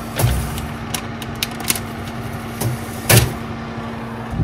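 Several knocks and clunks around an open oven, the loudest about three seconds in, over a steady low hum.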